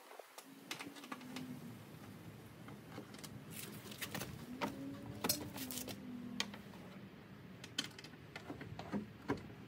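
Scattered light clicks and taps of hand tools and fingers working at the side-mirror mounting screws inside an opened car door.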